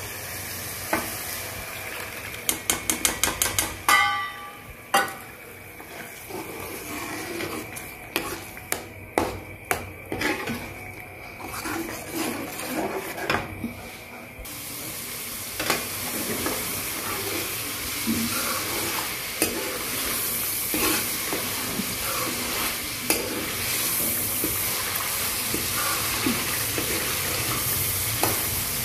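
Steel spoon stirring and knocking against a frying pan of curry masala, with a quick run of clicks early on. About halfway through a steady sizzle sets in as the masala, now thinned with yogurt, fries and bubbles, the spoon still scraping through it.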